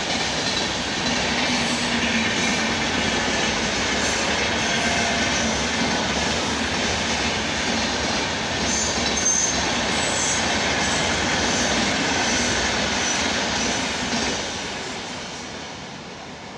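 Indian Railways train running on the track, a steady rumble and rattle of wheels on rail, with a brief high squeal about nine seconds in. The sound dies away near the end.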